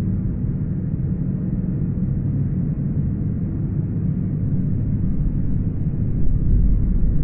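Sci-fi spaceship ambience loop: a steady, deep engine-like drone and rumble, with the lowest bass swelling slightly near the end.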